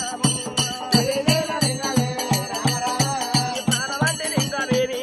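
Folk music with a steady drum beat, about three beats a second, under jingling bells and a wavering melody line.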